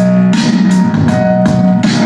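A song with drums and guitar played loudly through a homemade 2.1 amplifier and its two regular speakers, with the subwoofer not yet switched on and little deep bass.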